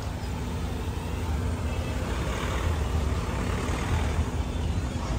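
Road traffic in a dense, slow-moving jam of cars and scooters: a steady low rumble of engines and tyres.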